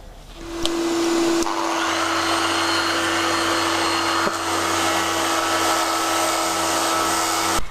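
A dust-extraction vacuum starts with a steady motor whine. About a second and a half in, a power sander with coarse 40-grit paper joins it, running steadily on the hull's epoxy primer. Both cut off suddenly near the end.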